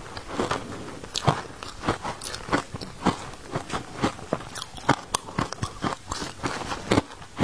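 Crushed ice dusted with matcha powder crunching in quick, irregular sharp crunches, several a second.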